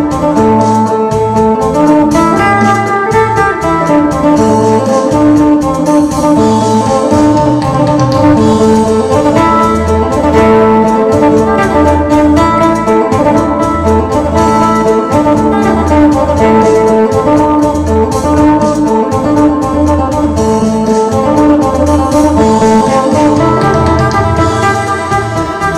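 Phin, the Isan three-string lute, played in a quick lam phloen melody of rapid plucked notes, over an accompaniment with a steady repeating bass beat.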